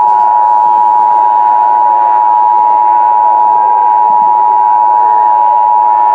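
Emergency Alert System attention signal: a loud, steady two-tone alert tone, 853 and 960 Hz sounding together, held without a break.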